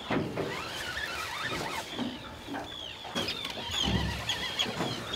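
Seabirds calling over open water: many short, high, chirping calls that repeat and overlap. A brief low rumble comes near the end.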